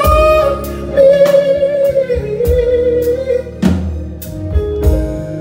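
Live band music: a male singer holds one long note with vibrato that stops about three and a half seconds in, over drums, keyboard and guitar, with scattered cymbal crashes.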